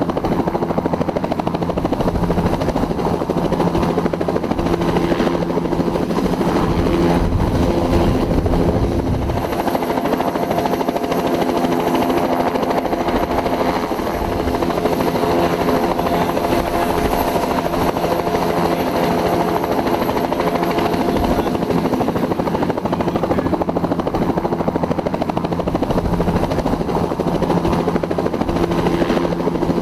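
Bell 206 helicopter running steadily: a continuous rotor and single-turboshaft sound with a held tone, the low rumble easing slightly about nine seconds in.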